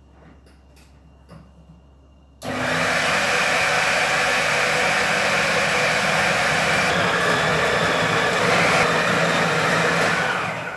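Countertop food processor switched on about two and a half seconds in, its motor running at a steady high speed as it mixes flour and salt into donut dough, then cutting off at the end.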